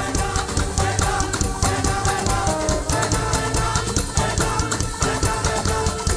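Live band playing upbeat African gospel praise music, with a fast steady drum beat and sustained keyboard chords.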